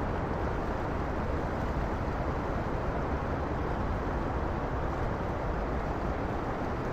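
Sea surf on a rocky shore: a steady rush of breaking waves with no single crash standing out.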